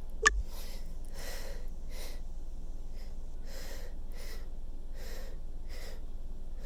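A person sniffling and breathing in and out after a sneeze: short, soft breaths, roughly one every half second to second. A single sharp click comes just after the start.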